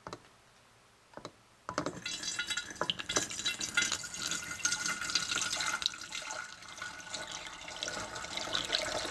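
Malt-extract wort pouring from a pot through a plastic funnel into a glass flask, splashing steadily as the flask fills; the pour starts about two seconds in, after two light knocks, and cuts off suddenly at the end.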